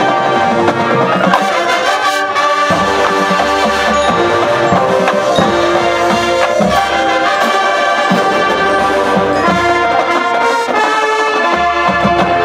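High school marching band playing loudly, the brass holding full chords over beats from the drums.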